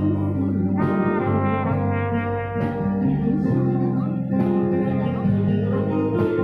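Live band music: a trumpet plays the melody in held notes over instrumental backing.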